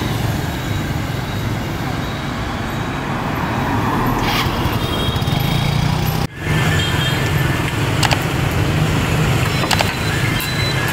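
Street ambience of steady motor traffic with voices in the background, cut off abruptly about six seconds in and then resuming.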